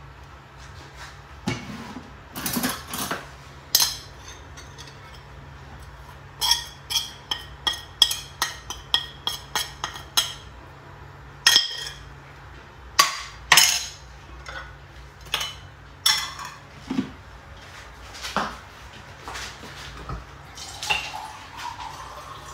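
Metal spoon clinking and scraping against a plate and the rim of a cooking pot as ground spices are knocked off into the pot. Scattered clinks, then a quick run of about ten taps, then more single clinks.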